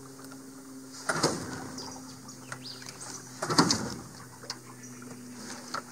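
Small outboard motor being pull-started: two hard pulls on the starter cord about two and a half seconds apart, the engine turning over without catching. Birds chirp in the background.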